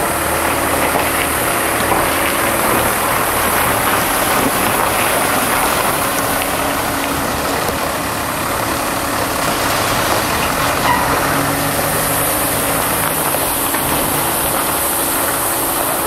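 John Deere 6900 tractor's six-cylinder diesel engine running steadily as it tows a grain trailer across a farmyard.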